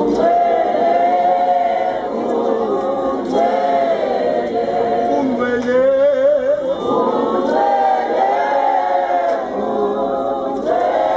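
A group of voices singing together unaccompanied, a cappella, in long held phrases with short breaks between them.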